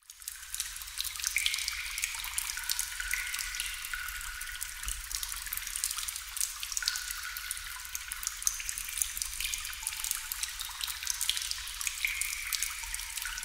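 Water drops falling into water: a dense, steady patter of high plinks and clicks, many with a short ringing note. It dips briefly and fades back in just after the start.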